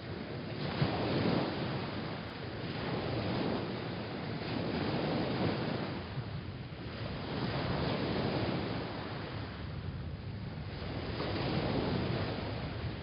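Ocean surf: waves washing in and breaking, swelling and fading every few seconds.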